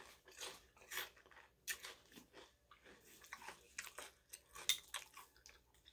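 Faint, irregular crunching and chewing of potato chips close to the microphone, with a few sharper crunches scattered through.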